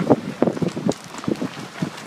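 Wind buffeting the microphone from a moving car on a dirt road: irregular low thumps and gusts, strongest in the first second, then easing.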